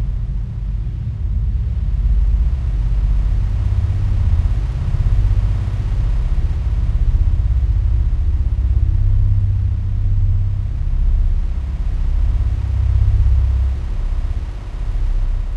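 Sci-fi UFO hovering sound effect: a deep, continuous low rumble with a fine flutter, swelling and easing every second or two, over a faint hiss.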